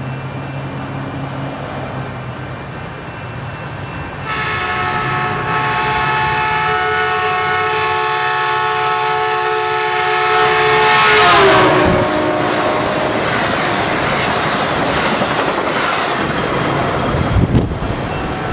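Caltrain F40PH-2 diesel locomotive sounding a long, multi-note air-horn chord as it approaches. The horn drops in pitch as the locomotive passes, and the loud rush and clickety-clack of the passenger train running through without stopping follows.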